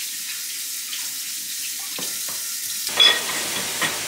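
Food sizzling in a frying pan: a steady high hiss that grows fuller about three seconds in, with two sharp clinks soon after.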